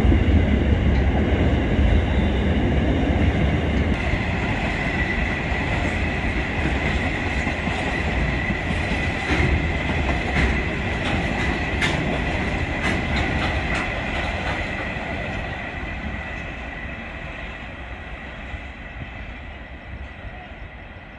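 Freight train wagons rolling past on steel rails: a low rumble with sharp clicks of wheels over rail joints and a steady high-pitched wheel squeal through the middle, fading away as the train draws off.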